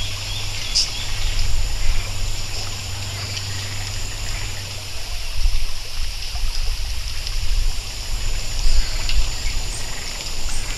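Steady ambience like a flowing stream, a rushing hiss with a low rumble underneath and a few faint high ticks.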